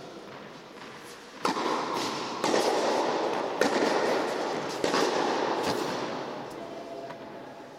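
Tennis racquet strikes and ball bounces in a rally: a string of sharp cracks about once a second, each echoing in a large indoor tennis hall.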